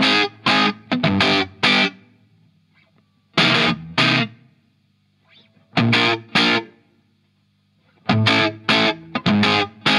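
Electric guitar through the BC Bender, a hand-wired fuzz pedal on the Vox Tone Bender MK1.5 circuit, with the guitar's volume turned up for a big fuzzy lead sound. It plays short, heavily distorted chord stabs in groups, with brief pauses between them.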